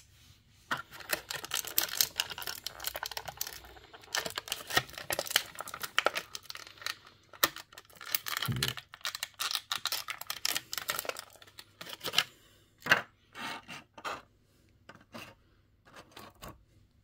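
Plastic packaging crinkling and tearing as small toy parts are unwrapped by hand, with many sharp little clicks and a single low thump about eight seconds in; the handling thins out to scattered clicks over the last few seconds.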